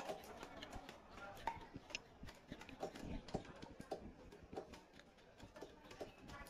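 Irregular wet knocks and taps of fish being cut and handled on upright bonti blades, several each second, with faint chatter behind.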